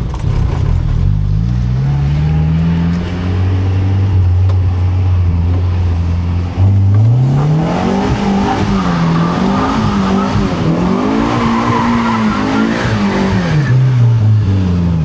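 A car engine is driven hard: the revs climb for the first few seconds, hold steady, then jump about six and a half seconds in. After that they rise and fall repeatedly while the tyres squeal and skid through the middle and later part, as the car slides.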